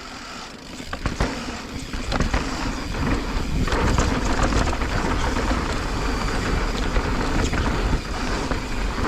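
Mountain bike riding fast down a dirt trail: tyres rolling on dirt with the bike rattling and knocking over bumps, and wind rushing over the microphone. It grows louder about a second in as speed picks up.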